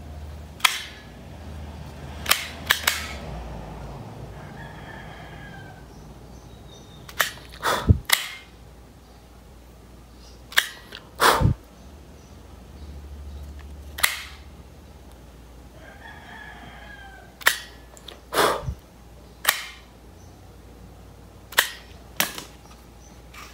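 A lighter being struck over and over to burn the cut rope ends: sharp clicks, single or in quick pairs, every second or few. A rooster crows twice in the background, about five and sixteen seconds in.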